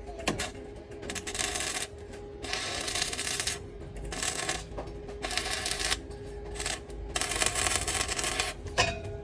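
Stick (arc) welding on a steel window frame: the electrode's arc crackles and spits in a string of bursts, each about half a second to a second long, stopping and restarting as the rod is struck again.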